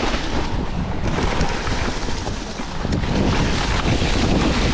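Wind buffeting the microphone and the e-mountain bike's tyres rolling fast over dry leaf litter on a downhill trail: a loud, steady, unbroken rush with small knocks from the bumps.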